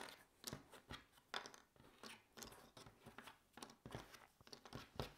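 Cardboard jigsaw puzzle pieces being gathered and pushed into a pile on a wooden table: faint, irregular little clicks and scrapes.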